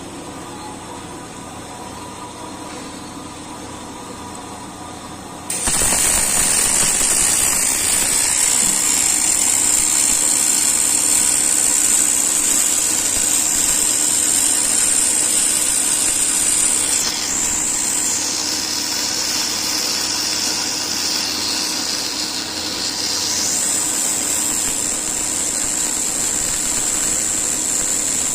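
Circular welding machine starting its weld about five seconds in: a steady hum gives way suddenly to a loud, even hiss with a high whine. The whine dips lower in pitch for several seconds midway, then returns.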